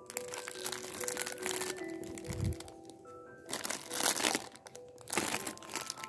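Plastic packaging of bagged yarn and craft kits crinkling in a hand as it is picked up and handled, in several separate rustles. Soft background music plays underneath.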